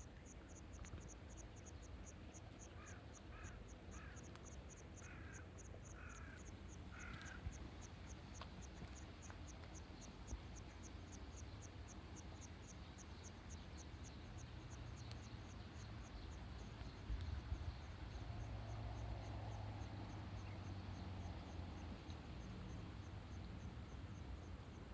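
A crow caws six times a few seconds in, over an insect chirping steadily at about three high pulses a second. A low rumble grows louder in the second half.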